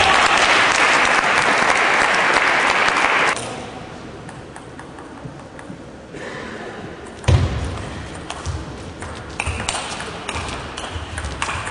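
Audience applause for about three seconds, then after a lull a table tennis rally: the ball clicking sharply off bats and table, with low thuds of players' feet on the court floor.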